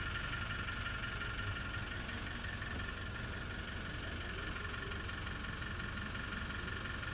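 An engine running steadily, with an even, unchanging level and a steady high whine over it.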